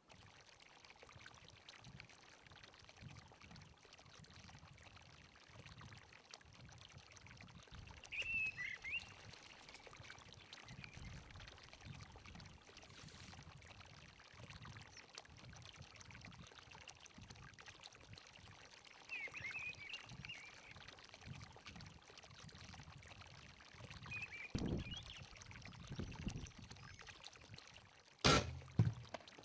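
Faint open-air ambience: low wind rumble on the microphone that rises and falls in gusts, with a few short high chirps from birds spread through it. A dull thump comes a few seconds before the end, and a sharp click follows near the end.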